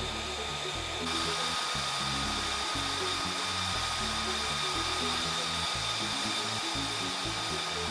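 F-35A Lightning II's Pratt & Whitney F135 turbofan idling: a steady rush of jet noise with several high whining tones, kept running during hot-pit refueling. It grows louder about a second in. Background music with low, shifting notes plays under it.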